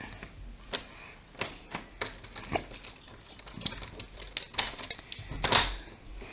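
A door handle and lock clicking and knocking irregularly as a back door is worked open, with the loudest knock about five and a half seconds in.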